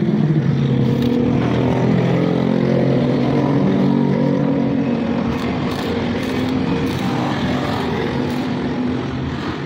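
A steady engine drone whose pitch wavers slightly, over a constant hiss.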